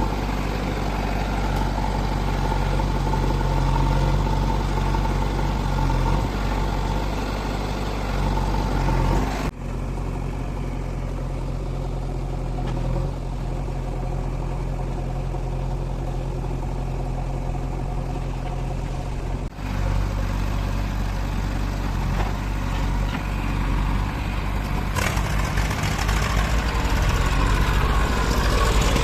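Diesel engines of working heavy machinery, a backhoe loader and tractors, running steadily, with the sound breaking off abruptly twice.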